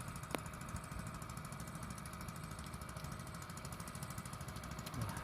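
Small boat engine running steadily with a rapid, even chugging beat.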